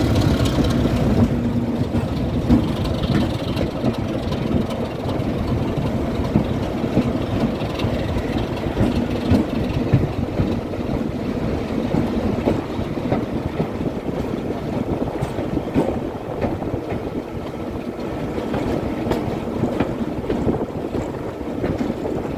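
Class 33 diesel locomotive on the move: the steady rumble of its diesel engine and running gear, with occasional clicks of the wheels over rail joints and points. The engine note is strongest at the start, then blends into the running noise of the train.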